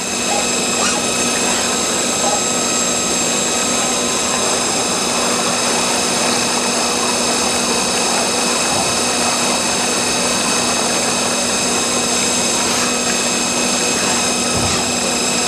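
GE Blue Arc machine cutting a superalloy pocket under electrolyte: a loud, steady rushing noise from the submerged arc discharge and high-pressure flushing, with several steady high-pitched whines over it.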